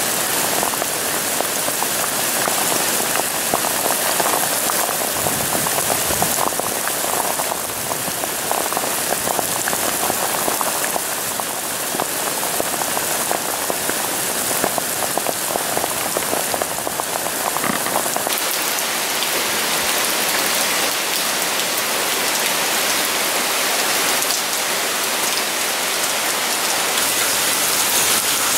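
Heavy rain falling steadily, a dense even hiss of hurricane rain, with a change in its texture about two-thirds of the way through.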